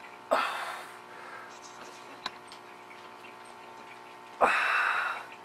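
Two short breathy exhales close to the microphone, one just after the start and a longer one near the end, over a steady electrical hum. A faint click falls in between.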